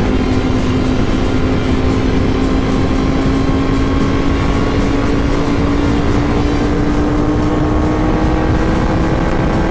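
Ducati Panigale V4 superbike's V4 engine pulling steadily in sixth gear, its pitch rising slowly and evenly as the bike accelerates from about 130 to 165 km/h. Heavy wind rush runs underneath.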